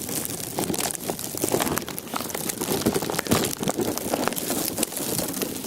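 Irregular crinkling and crackling handling noise from a plastic covering wrapped around a handheld camera, rubbing as the camera moves.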